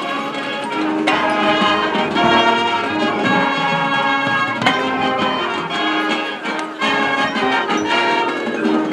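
High school marching band playing, its brass section sounding held chords that change every second or so, punctuated by a few sharp accented hits.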